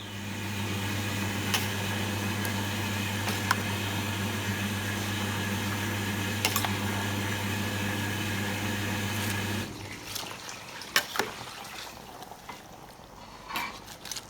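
Steady low electric hum of a running appliance motor, which cuts off abruptly near ten seconds in; a few light clicks and clinks are heard over it and after it.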